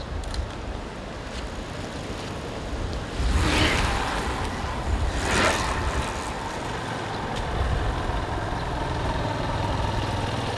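Racing bicycles passing close by at speed, two whooshes of tyres and air about three and a half and five and a half seconds in, over a steady low rumble.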